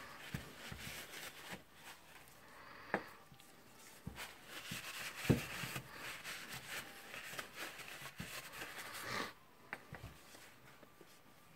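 Handling noises at a workbench: a few light knocks and clicks of a tool and parts being moved and set down, with a stretch of soft rubbing from about four to nine seconds in as the tool is wiped clean.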